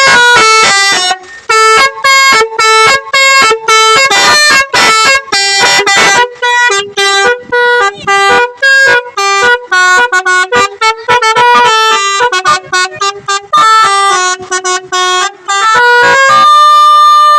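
Telolet horn, a set of electric musical horn trumpets, playing a quick melody of many short stepped notes, then holding one long steady note near the end.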